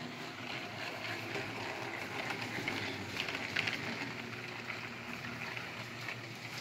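Tomy Thomas toy train and its plastic trucks moving along plastic track: a steady low hum and rattle, with scattered plastic clicks, a small cluster of them about three and a half seconds in.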